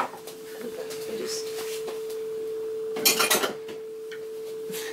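Bowls and utensils clinking and being handled on a kitchen worktop, with a short rattling clatter about three seconds in, over a steady hum.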